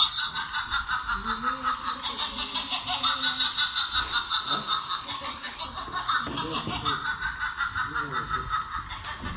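Long unbroken run of snickering laughter, even ha-ha pulses about five a second, with faint talk underneath.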